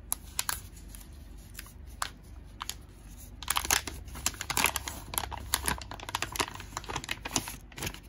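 Black plastic mystery-card pack being opened by hand: the bag and the clear plastic wrapping inside crinkle and tear. A few scattered crackles at first, then dense crinkling from about three and a half seconds in.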